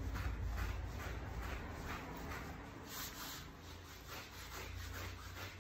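Slicker brush worked hard through a doodle dog's thick, curly coat: a run of short, repeated brushing strokes.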